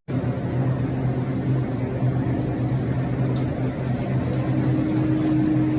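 A steady motor hum with a low drone and fainter steady tones over a rushing noise.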